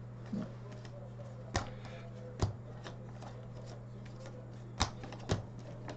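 Hockey trading cards being flipped through and set down by hand, with four short, sharp card snaps over a low steady hum.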